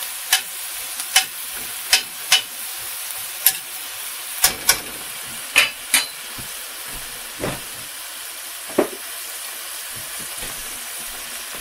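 Diced onion and minced garlic sizzling in oil in a stainless steel pan, with a steady hiss. A metal spatula clicks and scrapes against the pan about nine times in the first six seconds, then twice more further on.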